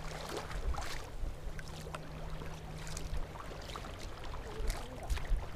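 Kayak paddle strokes in calm seawater: the blades dip and splash on alternate sides, with small water splashes and a low rumble beneath.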